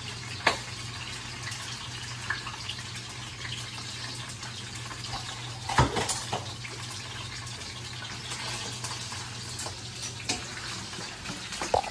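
Coho salmon pieces sizzling as they fry in hot oil in a pan, a steady crackling hiss over a low steady hum. A few sharp knocks break in, the loudest about six seconds in.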